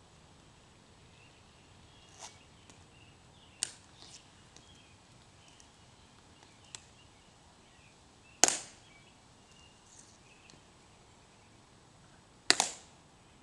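Sharp clicks from the Tomb Guard sentinels' ceremonial heel and rifle drill on the stone plaza. A few light clicks come first, then two loud ones about four seconds apart, the second doubled, each ringing briefly.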